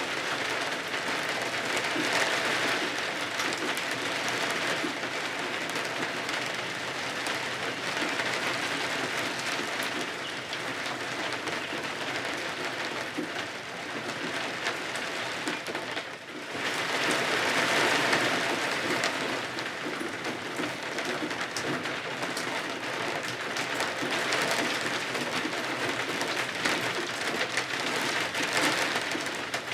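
Steady rain falling on windows and roof, a dense even hiss that swells and eases every several seconds, briefly dropping away about sixteen seconds in before building again.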